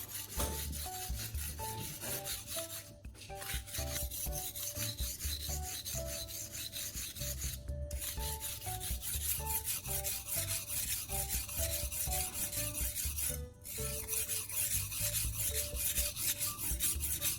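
Steel knife blade rasping back and forth on the wet coarse 240-grit side of a whetstone coated with baking soda paste, in a steady run of quick gritty strokes that drops out briefly three times.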